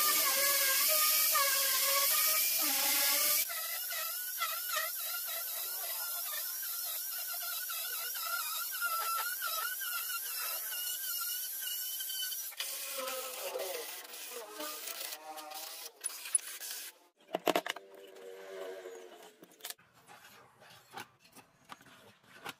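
Angle grinder with a sanding disc running against the edge of a wooden ring, its motor whine wavering up and down as the pressure on the wood changes. About 13 seconds in the motor spins down, and the rest holds scattered faint knocks and handling of wood, with one louder knock.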